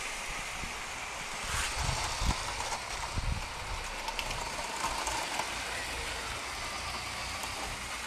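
Lego 9V train running along the track, its wheels rattling over the metal rails with a few low knocks.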